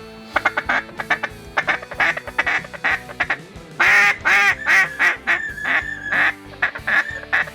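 Runs of rapid duck quacks, several short quacks in a row with gaps between the runs, and a held higher-pitched call about five seconds in.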